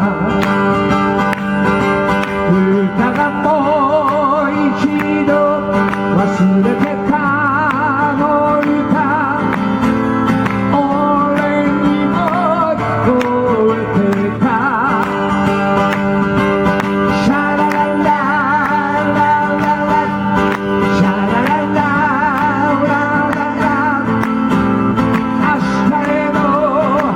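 A man singing with vibrato over a steadily strummed acoustic guitar, a live solo vocal-and-guitar performance.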